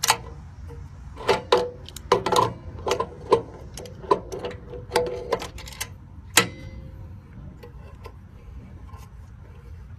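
Wrench tightening a replacement gladhand onto a semi trailer's air line: a run of irregular metallic clicks and clinks, stopping about six and a half seconds in.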